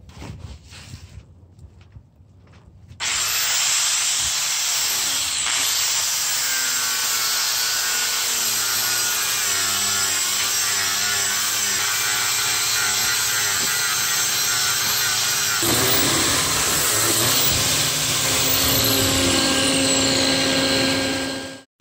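Electric angle grinder grinding fiberglass on a boat hull, tapering back the edges of a hole for a fiberglass patch. It starts about three seconds in and runs loudly and steadily, its motor pitch sagging and recovering as the disc is pressed into the work. The sound changes abruptly about two-thirds through and cuts off just before the end.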